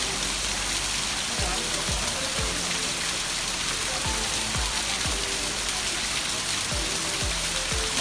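Steady rush of falling water at Sekumpul waterfall, with background music with a steady beat laid over it.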